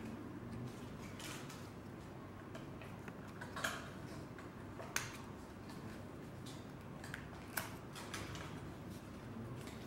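A small product box being handled and worked open by hand: soft rubbing and scraping of the box with scattered small clicks and taps, three of them sharper and louder, over a low steady background hum.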